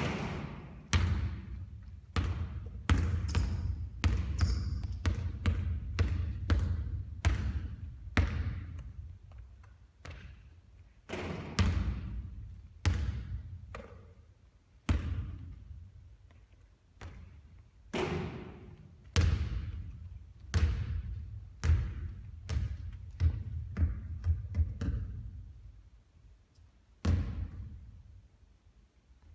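Basketball bouncing on a court floor, again and again: runs of thudding bounces a few seconds long, with short quieter gaps between them.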